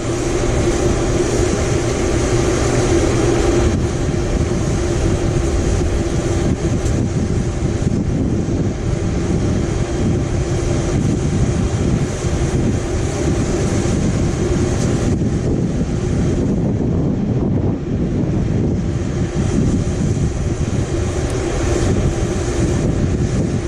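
Wind buffeting the microphone in gusts, over a steady low drone.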